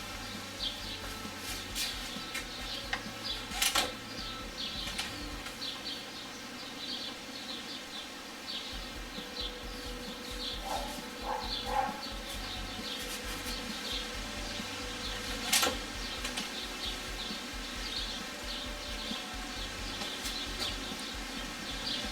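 Faint outdoor chirping of birds and insects, steady in the background, with a few sharp clicks, the loudest about four seconds in and again about fifteen seconds in.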